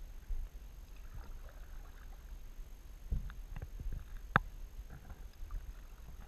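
Kayak being paddled: soft paddle splashes and scattered light knocks over a low rumble, with one sharp knock about four seconds in.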